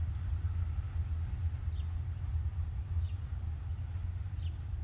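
A low, steady rumble, with a small bird giving three short, falling chirps, each more than a second apart.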